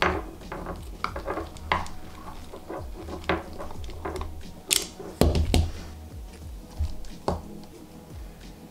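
Plastic wiring-harness connectors and cables handled on a tabletop: a run of small clicks and rattles, with a louder knock about five seconds in.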